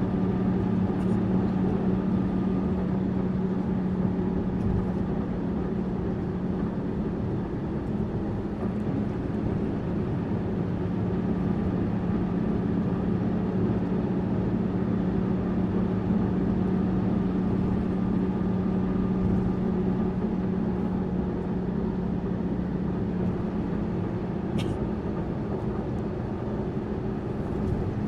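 Tourist bus running steadily on the road: a constant engine drone with a low, even hum under road noise. A single sharp click near the end.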